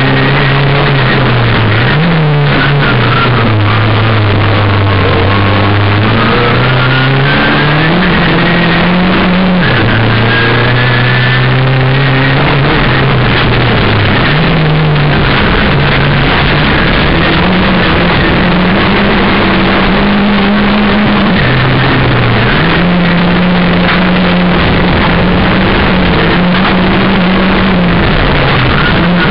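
Turbocharged VW Golf rallycross car's engine at race pace, heard from inside the cabin: loud throughout, its note climbing through the revs and dropping sharply at each gear change, again and again.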